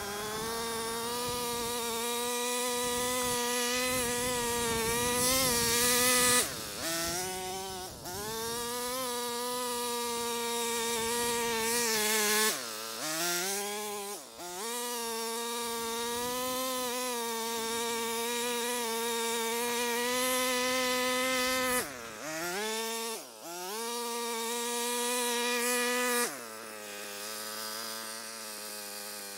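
Small gas-engine mini tiller running at high revs while its tines work through soil, a steady buzzing note. The pitch dips and recovers several times, then drops to a lower, quieter idle near the end.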